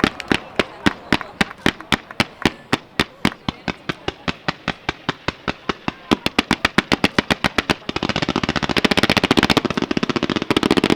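A rapid, evenly spaced series of firework bangs, about four a second. About six seconds in they speed up, and near the end they merge into a dense, continuous crackle of reports.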